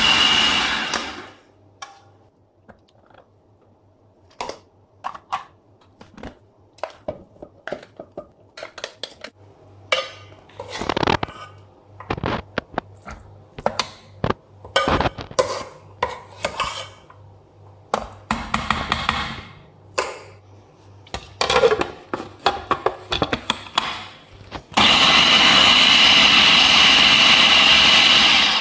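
Electric food processor grinding cooked chicken and lentils: the motor runs for about the first second and stops, then comes a long stretch of separate clicks and knocks as the bowl and lid are handled. In the last few seconds the motor runs again, loud and steady.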